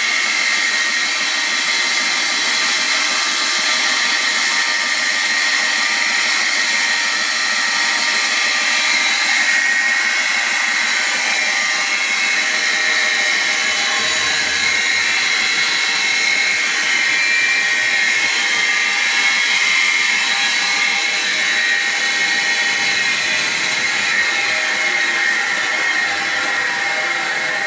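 Horizontal belt grinder running steadily: a whine of many held tones over a hiss, easing a little near the end.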